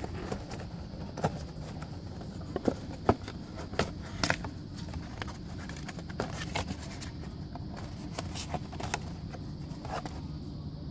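Scattered light clicks, taps and knocks of an oil filter cartridge and its housing being handled, over a steady low background hum.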